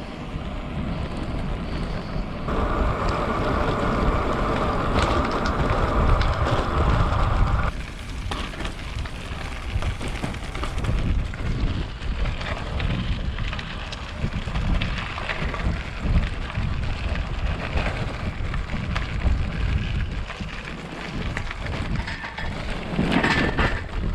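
Wind buffeting the microphone with a steady rushing rumble, as when riding a bicycle. It is denser and louder for about five seconds, from roughly 2.5 s in.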